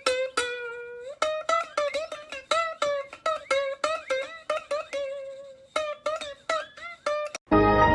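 Music on a plucked string instrument like a ukulele: a quick run of picked notes, a few per second. Near the end it cuts off abruptly and a fuller, sustained sound takes over.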